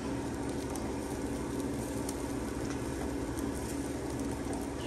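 Steady kitchen hum and hiss with faint, scattered crackling from corned beef hash cooking on the stove.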